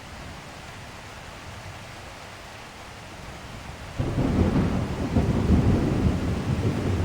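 Steady rain falling, then about four seconds in a loud, low thunder rumble breaks in suddenly and keeps rolling over the rain.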